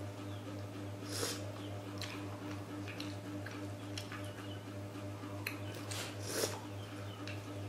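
Eating with chopsticks from a ceramic bowl: scattered light clicks of the chopsticks and chewing, with two short slurps of noodles, one about a second in and one near the end. A steady low hum runs underneath.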